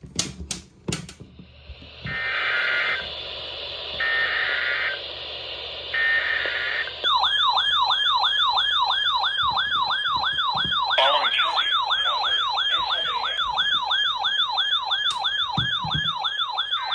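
Emergency Alert System broadcast starting a new alert: three short bursts of data tone about two seconds apart, then a loud siren-like warbling alert tone that sweeps up and down about twice and a half a second and cuts off just before the end.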